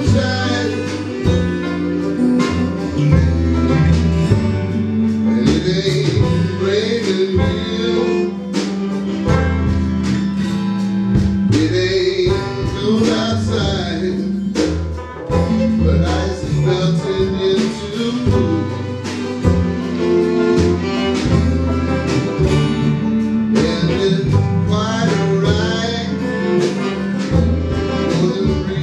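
A small band playing a country tune live, with guitars and keyboard.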